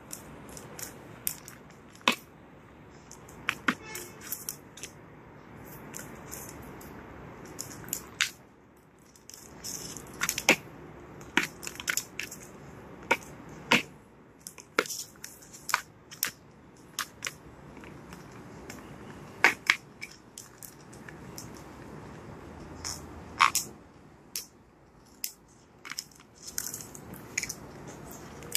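A cinnamon green-cheeked conure playing with marbles in a cardboard box. The marbles and its beak make irregular sharp clicks and taps against the cardboard, scattered throughout, a few loud knocks among many lighter ones.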